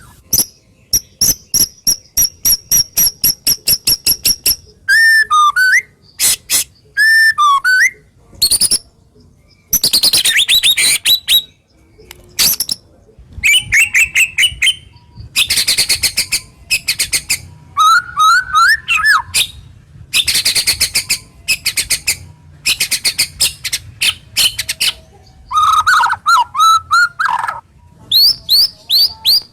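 White-rumped shama (murai batu) singing a varied song: fast runs of repeated sharp notes, harsh rasping bursts and slurred whistled phrases, with short pauses between. These rough, sharp notes are what shama keepers call 'tembakan kasar dan tajam'.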